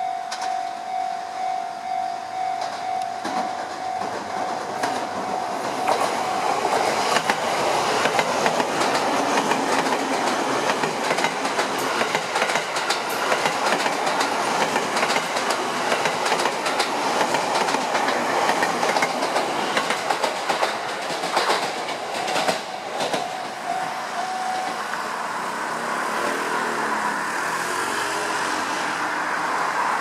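Sotetsu electric train running past at close range, its wheels clattering over the rail joints in rapid clicks. A level-crossing warning bell rings steadily through the approach and pass, stopping near the end.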